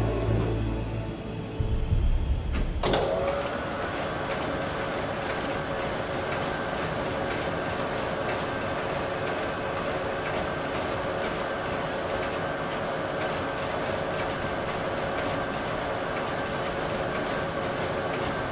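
Low music for the first few seconds, then a sharp click about three seconds in, after which steady mechanical machinery noise with a constant hum sets in and keeps an even level.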